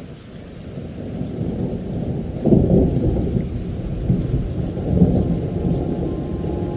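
Typhoon-force wind buffeting the microphone as a low, continuous rumble. It fades in at the start and surges in gusts about two and a half seconds and five seconds in.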